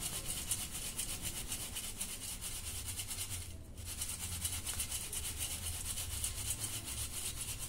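Dry thin poha (flattened rice flakes) shaken in a steel sieve over a steel plate, sifting out the fine crumbs: a rapid, even rustling and scraping of flakes against the mesh. There is a brief pause about three and a half seconds in.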